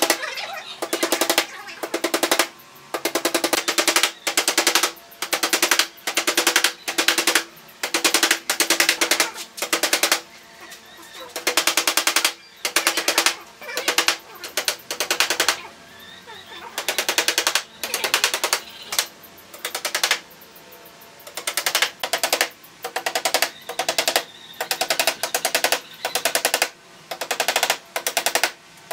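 Hammer driving nails through split-bamboo slats into a wooden frame: short bursts of very rapid taps, about one burst a second, with a faint ringing tone under them.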